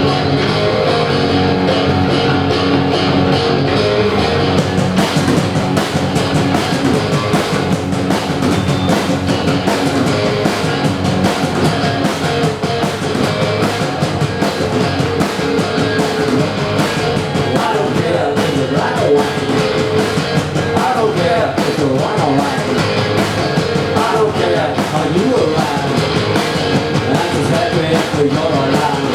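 Live rock band playing with electric guitar and drum kit, the sound filling out with the full band about five seconds in.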